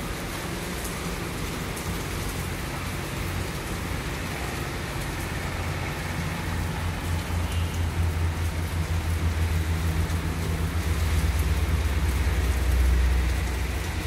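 Steady rain falling, an even hiss, with a low rumble building over the second half and peaking just before the end.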